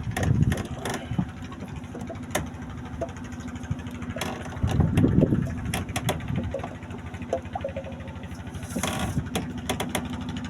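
Small boat engine running steadily with an even hum, with scattered knocks and clicks on top.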